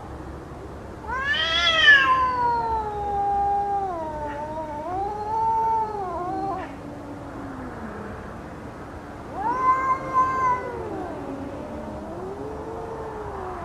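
Cats caterwauling in a standoff before a fight: long, drawn-out yowls that waver and slide in pitch, a loud one about a second in and another at around nine seconds, with lower moaning growls between.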